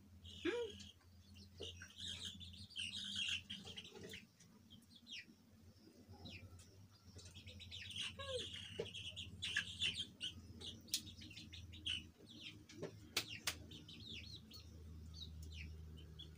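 Birds chirping in quick, high calls throughout, with a couple of lower chicken calls, about half a second in and again around eight seconds.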